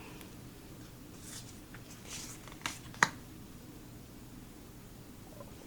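Tarot cards being handled: a few soft sliding swishes and two light clicks of cards tapping down, about a second and a half to three seconds in.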